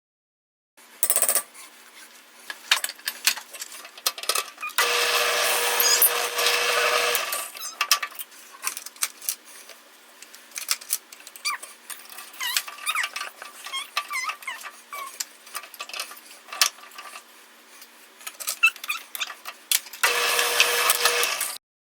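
A woodworking power tool's motor running with a steady hum, with two loud stretches of cutting into wood: one about five seconds in lasting a couple of seconds, and one near the end. Between them come many small clicks and knocks of wood and tools being handled.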